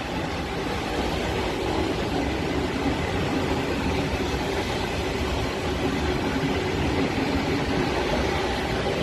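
SNCB I11 intercity passenger coaches rolling past on the next track: a steady rumble and rattle of wheels on rail, with a faint steady hum.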